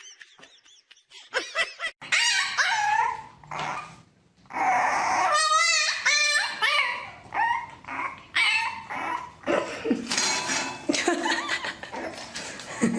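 A dog vocalizing in a string of whines, yips and barks with wavering pitch, broken by short pauses.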